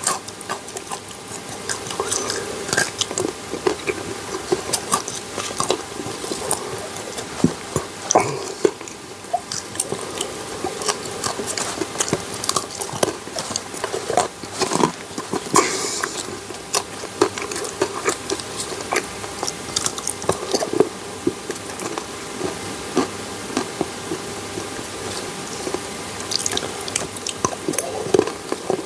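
Close-miked chewing and biting of milk chocolate: irregular wet mouth smacks and sticky clicks, over a faint steady hum.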